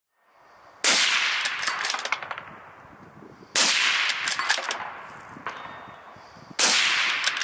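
Three loud, sharp bangs about three seconds apart, each ringing off over a couple of seconds with small metallic clinks in the tail.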